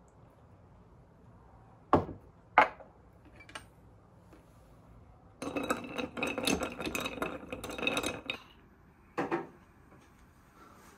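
Glassware knocking and clinking on a glass tabletop: two sharp knocks about two seconds in, then about three seconds of rapid clattering clinks that ring, and one more knock near the end.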